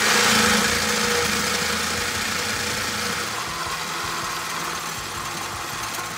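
Cordless DeWalt reciprocating saw cutting steadily through a truck's steel exhaust pipe just behind the muffler. The sawing is loudest in the first second and eases slightly as the cut goes on.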